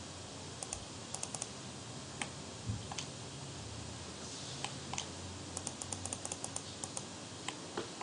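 Clicking of a computer keyboard: scattered single clicks, then a quick run of about a dozen near the end, with a dull thump a little under three seconds in, over a steady hiss.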